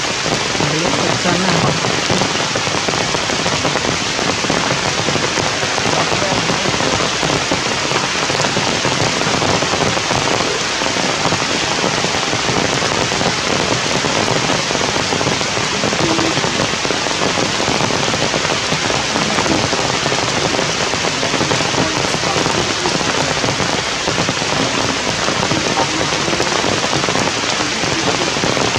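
Heavy rain falling steadily in a dense, even hiss of drops.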